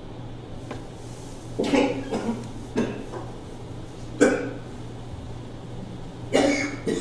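A person coughing and clearing the throat in several short bursts, over a steady low hum.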